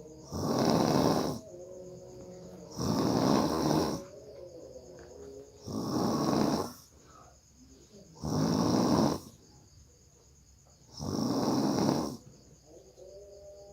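A sleeping person's hard, heavy snoring: five loud, rasping snores, each about a second long, coming at an even pace of roughly one every two and a half to three seconds, with quieter breathing between them.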